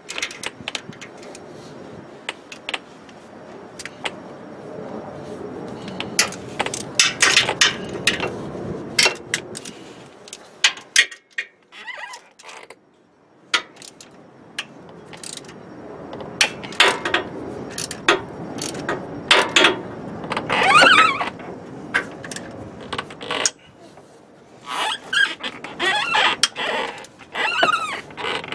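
Hand ratchet wrench clicking in irregular runs as a starter-motor mounting bolt is worked loose, with scattered metal clinks and a few short squeaks. There are brief pauses about eleven seconds in and again near the end.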